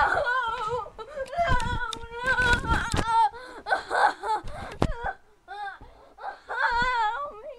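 A high-pitched voice wailing and whimpering without words, its pitch wavering and sliding, with a few low bumps.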